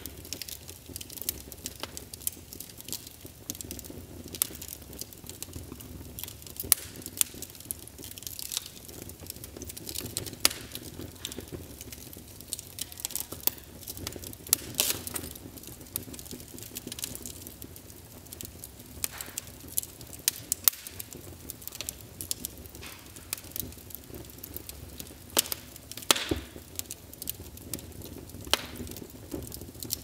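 Wood fire crackling: irregular sharp pops and snaps, several a second, over a low steady background.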